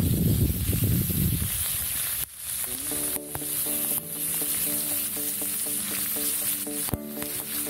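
Beef fillet steak sizzling on a cast-iron griddle plate over a wood fire, a steady hiss. A low rumble fills the first second and a half, and soft background music with held notes comes in about two and a half seconds in.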